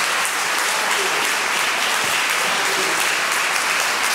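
Audience applauding at the end of a piece: dense, even clapping at a steady level.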